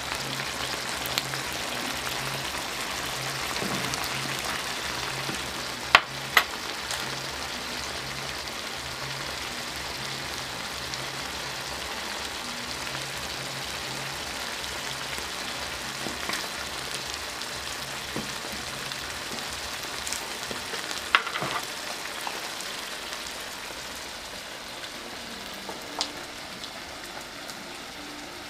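Meat and tomato stew sizzling steadily in a non-stick frying pan, with a few sharp clicks, two close together about six seconds in.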